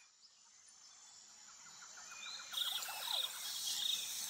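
Natural outdoor ambience fading in from near silence: a series of faint chirps, then from about halfway a steady high hiss with repeated insect trills.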